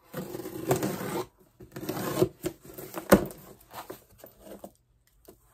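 Brown paper and cardboard packaging rustling and tearing as it is unwrapped by hand, with a sharp knock about three seconds in and a few lighter taps after.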